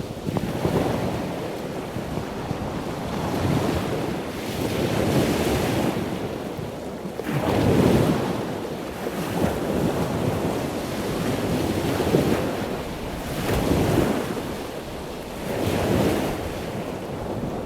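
Ocean waves washing in, a steady rush of surf that swells and falls every couple of seconds.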